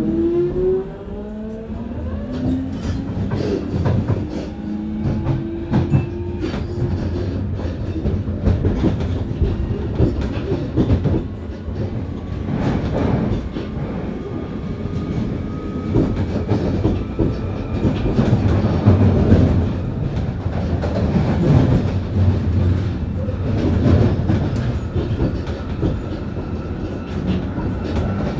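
1996 Tube stock train accelerating, heard from inside the car: its Alstom GTO inverters and traction motors give a deep, wavering set of rising tones at low speed. These give way to the rumble and rattle of wheels on rail, with many sharp crackles that the uploader puts down to electrical arcing on the track, which makes the acceleration pause.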